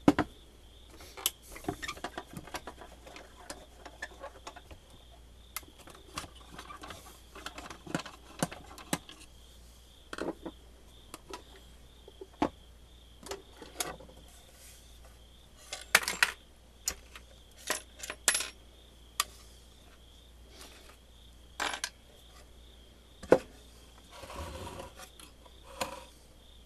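Scattered small clicks, clinks and knocks of hand work on a vintage Heathkit MM-1 multimeter: a screwdriver backs out the four screws of its Bakelite case, and small metal parts clink as the case is handled and opened.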